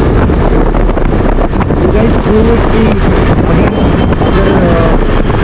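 Steady wind rush buffeting a helmet-mounted action-camera microphone on a moving motorcycle, with road and vehicle noise underneath.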